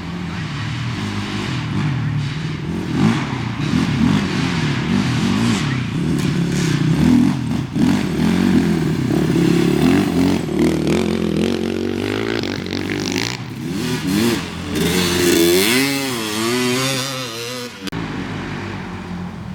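Off-road race vehicle engines revving hard, the pitch rising and falling as the throttle works. For a few seconds near the end, one engine's pitch swings rapidly up and down, then cuts away suddenly.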